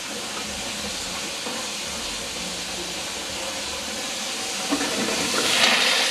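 Water from a kitchen faucet running and flowing down through the sink's new ABS drain trap as a leak test: a steady rush that grows louder near the end.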